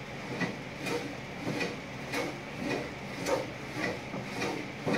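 Metal hand plane shaving a softwood board in short, quick strokes, about two a second, each stroke a brief scrape of the blade along the wood.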